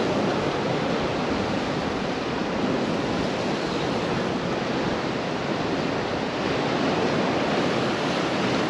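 Ocean surf breaking and washing ashore, a steady rushing noise.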